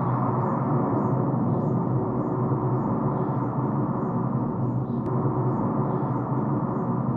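Steady drone of a car on the move, heard from inside the cabin: engine and road noise without a break.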